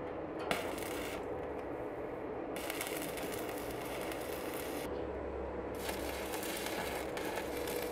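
Electric arc welding on a steel frame: the arc crackles and sizzles in three runs with short breaks between them as the welder strikes and stops.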